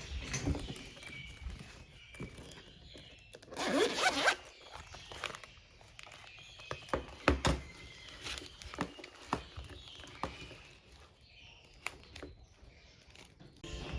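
Small handling noises, scattered clicks and rustles, with a brief zipper-like rasp about four seconds in.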